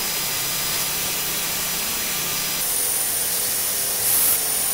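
Metal lathe machining a spinning steel shaft: a drill bit boring into it, then a turning tool cutting metal. The sound changes abruptly about two and a half seconds in, when a thin high whine appears.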